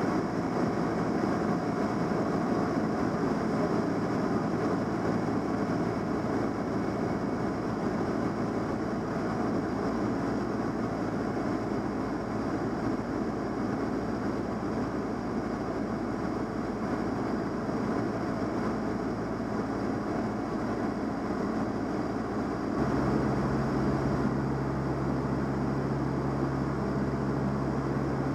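Van's RV-7A's piston engine and propeller droning steadily, heard from inside the cockpit with rushing air noise. Toward the end, the sound changes: a deeper steady hum comes up and it gets slightly louder.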